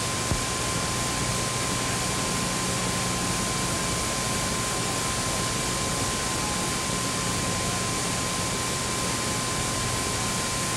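Steady broad hiss with a low hum and a thin steady high tone, the background noise of an old broadcast recording, with one brief low thump just after it begins.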